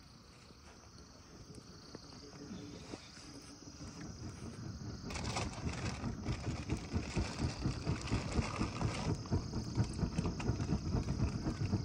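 A piece of cardboard fanned quickly back and forth over a charcoal barbecue grill to get the coals burning, pushing air in rhythmic whooshes, several strokes a second, that grow louder about five seconds in.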